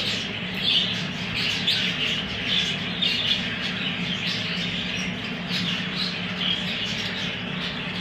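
Budgerigars chattering and chirping continuously in a birdroom, a dense busy warble of short calls, over a steady low hum.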